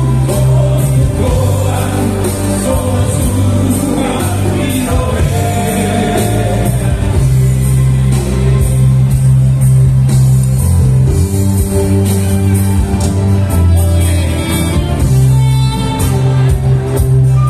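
A men's vocal group singing together in harmony through microphones, accompanied by a live band with sustained bass notes.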